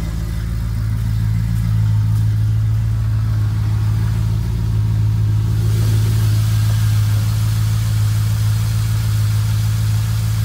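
A 6.0-litre LQ4 V8 idling steadily, freshly started on a newly installed high-flow fuel pump. From about halfway in, the engine's hiss and clatter come through more clearly from over the open engine bay.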